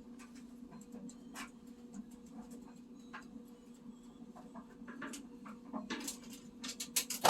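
Whirlpool washer humming faintly and steadily with scattered light ticks and clicks, as it waits to start its spin and drain.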